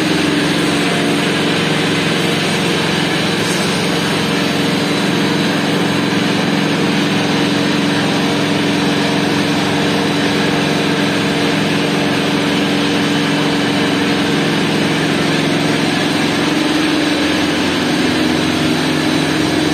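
Wastewater treatment plant machinery running steadily: a constant hum from electric pump motors over a broad rushing noise of air bubbling through the aeration tanks.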